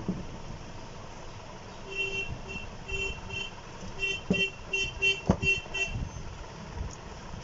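A horn sounding a quick string of short beeps of uneven length for about four seconds, starting about two seconds in. Two sharp knocks fall in the middle of it.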